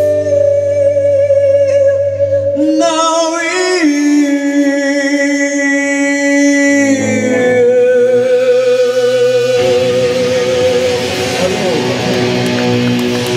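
Live rock band: a man sings long held notes with vibrato over sustained guitar chords, then drums and cymbals come in with the full band about ten seconds in.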